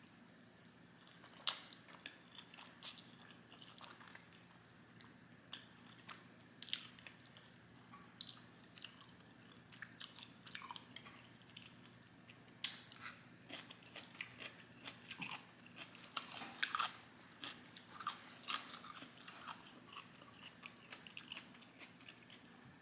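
Close-up chewing of Korean black bean noodles (jjajangmyeon): irregular wet mouth smacks and clicks, with a few louder ones, some crunchy.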